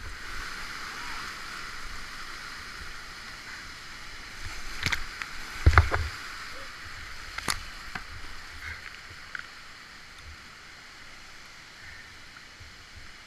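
Whitewater rapids rushing around a kayak, with a few sharp splashes and knocks against the boat and camera about five to seven and a half seconds in. The rush grows fainter near the end as the boat reaches calmer water.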